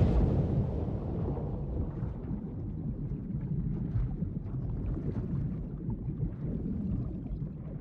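Muffled underwater ambience: a steady low rumble with faint crackling of bubbles, as the hiss of a plunge into the sea dies away over the first second or so.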